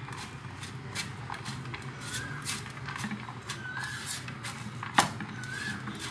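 Chopped raw onions, green chillies and spice powders being squeezed and mixed by hand in a non-stick pan: a run of crisp crunching and rustling with a sharper click about five seconds in. A short chirp repeats three times, about every second and a half, over a steady low hum.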